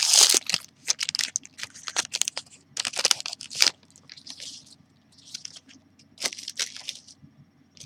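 Crinkling and tearing of a trading-card pack wrapper being pulled open and handled, in dense irregular bursts, followed by a few softer swishes as the cards are slid out.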